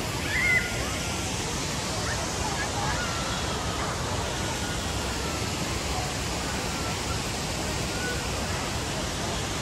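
Steady outdoor rushing noise with a few faint short distant sounds over it, and one slightly louder blip about half a second in.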